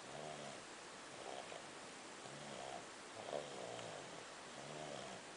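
Snoring: a faint, regular rasping snore, each lasting about half a second, recurring roughly once a second.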